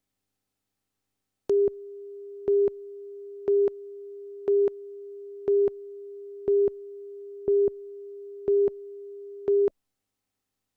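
Broadcast tape countdown leader: a steady test tone with a louder beep once a second, nine beeps in all, cutting off suddenly near the end.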